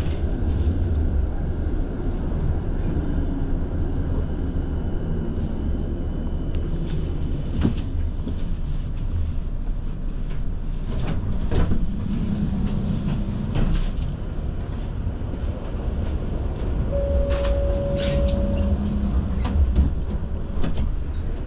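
Tram running, heard from inside the car: a steady low rumble with scattered sharp clicks and clacks from wheels on rail. Late on, a single steady tone sounds for under two seconds.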